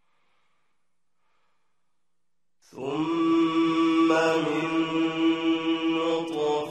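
Near silence for almost three seconds, then a man's voice begins chanting Quran recitation, holding long melodic notes.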